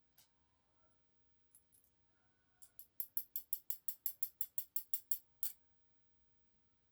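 A rapid, even run of about sixteen small sharp clicks, roughly five a second, lasting about three seconds from a couple of seconds in, from small metal parts of a dimple lock cylinder being worked while it is taken apart; a few faint ticks come before it.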